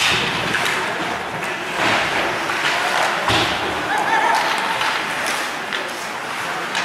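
Ice hockey game sounds in a rink: repeated thuds and slams of the puck and players hitting the boards, over crowd chatter and a shout.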